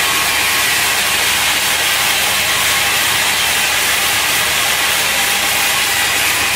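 Plastic pelletizing line running: a steady, loud machine noise, a continuous hiss over a low hum, with no distinct strokes or changes.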